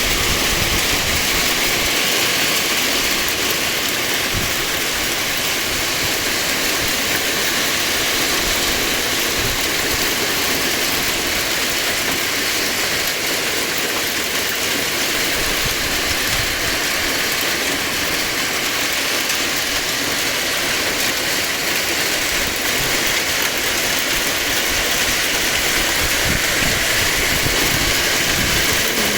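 Heavy rain mixed with hail coming down hard, a dense, steady hiss that does not let up.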